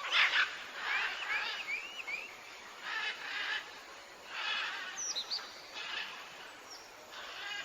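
Small birds chirping: a quick run of rising chirps about a second in and a few sharp, high whistled notes about five seconds in, over a soft hiss that swells and fades every second or so.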